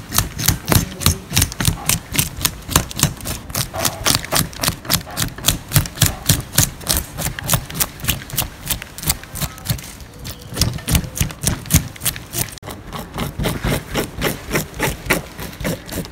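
A metal fork scraping scales off a whole sea bass in quick, rhythmic strokes, about four a second, with a brief letup about ten seconds in.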